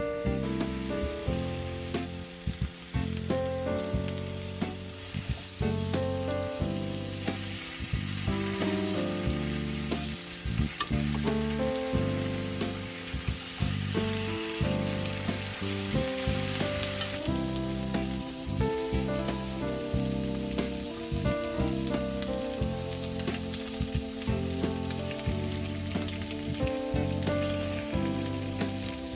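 Food frying and sizzling in a pan, a steady crackling hiss, with occasional stirring. Piano-style background music plays over it.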